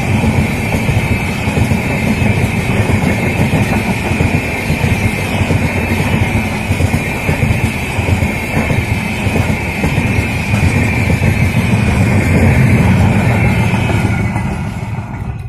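A passenger train's LHB coaches running past steadily with loud wheel and rail noise, fading near the end.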